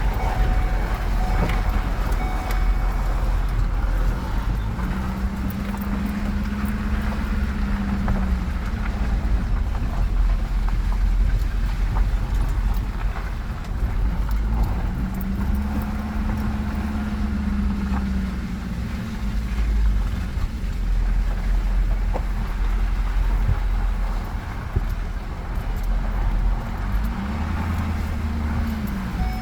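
Pickup truck driving slowly on a gravel road, heard from inside the cab: a steady low rumble of engine and tyres. The engine note swells and falls back three times, with scattered small clicks and rattles throughout.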